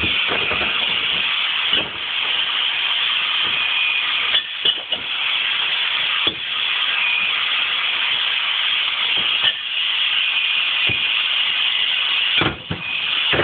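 Power cutting tool cutting through a BMW's sheet-metal rear panel: a steady hiss with a faint high tone, broken by short pauses every few seconds.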